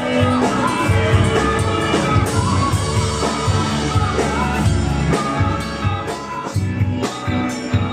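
Rock band music with a steady drum beat and a singing voice.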